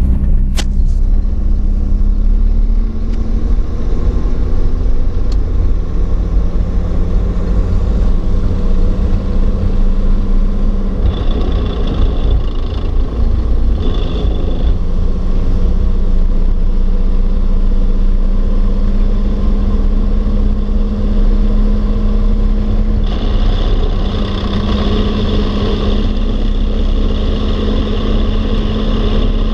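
Inside the cab of a truck on Rockwell 2.5-ton military axles while driving: a heavy low rumble and drivetrain drone with the chatter noise from the Rockwell running gear. A higher hiss joins in about a third of the way through and again near the end.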